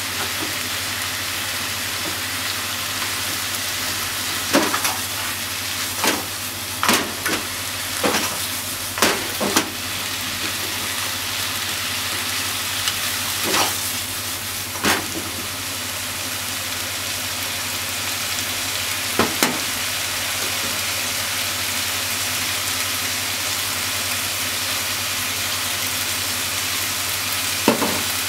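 Vegetable and pork stir-fry sizzling steadily in a frying pan, with scattered sharp clacks as the cooking chopsticks stir and turn it, most of them in the first half.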